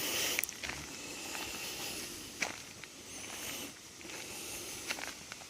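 Footsteps crunching on a gravel trail: scattered short crunches over a steady hiss.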